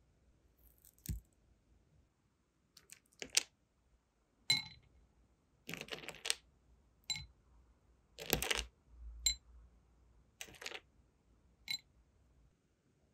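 Short, light clicks and clinks of small hard sealing-wax pieces and metal tweezers against a clear plastic compartment box, about ten of them spaced unevenly, some with a faint high ringing.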